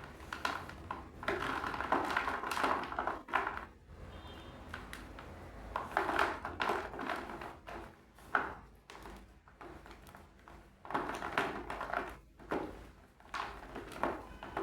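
Chalk being crushed and crumbled in repeated bursts of gritty crunching and crackling, each lasting a second or two, with short pauses between them.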